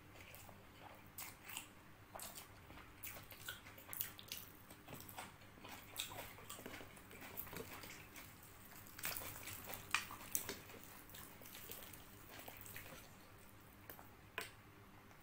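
Close-miked eating by hand: wet chewing and lip smacks, with squelches of fingers tearing apart a whole spiced curry chicken. The smacks and clicks come thick and irregular, thinning out near the end.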